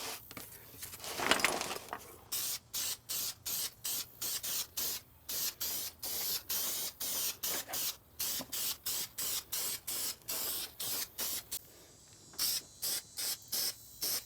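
Aerosol can of white engine paint spraying the outboard's powerhead in quick short bursts, about two to three a second, with a brief pause near the end.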